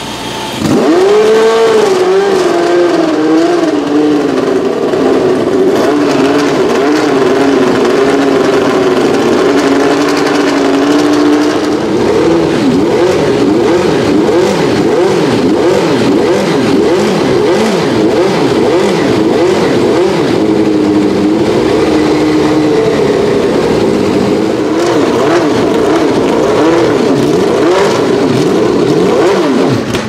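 Lamborghini V12 of a Minardi M191B Formula 1 car starting up about a second in, run off an external starter, and held at a fast warm-up idle that slowly settles lower. From about halfway on it gets repeated sharp throttle blips, the revs rising and falling again and again.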